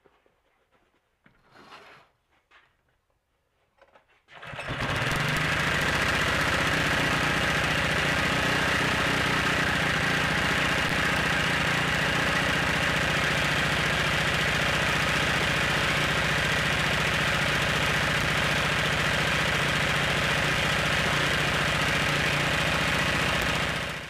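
Honda GX120 single-cylinder OHV engine catching about four seconds in and then running steadily, its plugged pilot jet just cleaned out.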